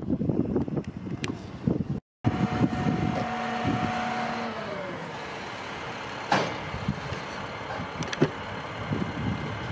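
Railroad train noise, a steady rumble that cuts out for a moment about two seconds in. A few faint tones slide down in pitch about halfway through, and there are sharp clanks later on.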